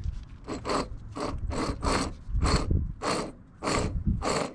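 Worn wheel hub bearing from a 1998 Jeep Wrangler TJ spun by hand, grinding in short gritty strokes about twice a second, "like grinding coffee": the bearing has failed, the fault that failed the Jeep's inspection.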